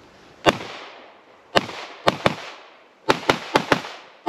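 Pistol shots fired in quick succession during a practical-shooting stage: a single shot about half a second in, then pairs and a fast string of four near the end, eight in all, each with a short echo.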